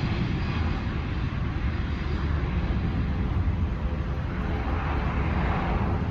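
Airbus A350 jet engines running as the airliner rolls along the runway: a steady deep rumble with a hiss over it, swelling slightly about five seconds in.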